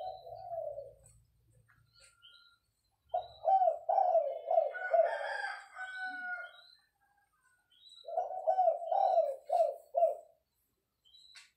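Spotted dove cooing in bouts of rhythmic, repeated coos: a short one at the start, then two longer runs about three and eight seconds in.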